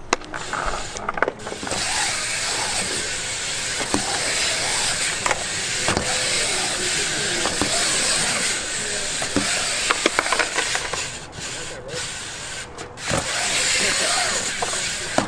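BMX bike tyres rolling on a concrete skatepark bowl: a steady hiss, with a few light clicks and knocks.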